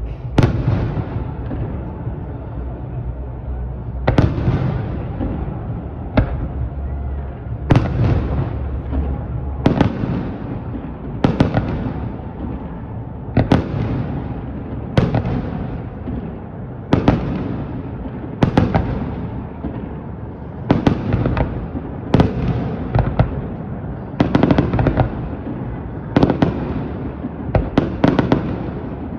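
Aerial firework shells bursting in a steady series. Each sharp bang is followed by a rolling rumble of echo. The bangs come every second or two, often in quick pairs or threes, and come closer together toward the end.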